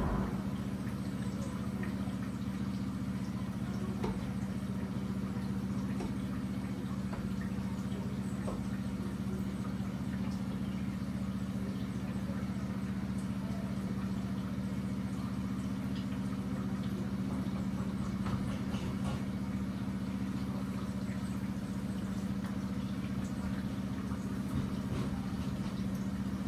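A steady low hum, with a faint crackle of bhajias deep-frying in a pot of oil and a few light clicks over it.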